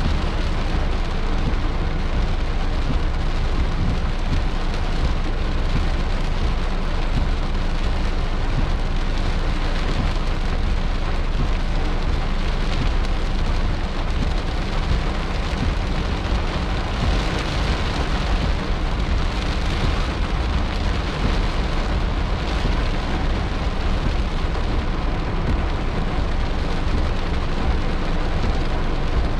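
Heavy rain falling steadily on a car's roof and windshield, heard from inside the car.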